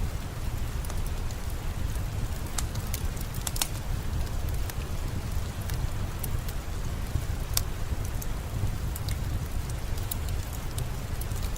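Steady rain with a low rumble, mixed with a crackling wood fire: scattered sharp pops and clicks over the even hiss.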